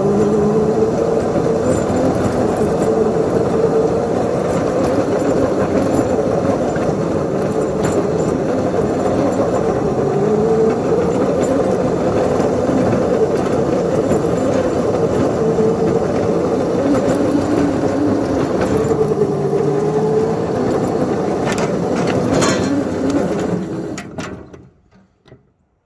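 Engine of a ride-on miniature locomotive running steadily under load as it pushes a snowplow through snow, its pitch wavering slightly. The sound fades out about a second before the end.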